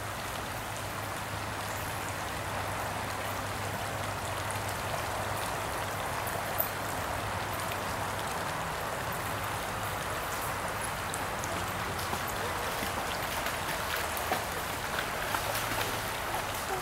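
Shallow creek running over stones: a steady rush of flowing water.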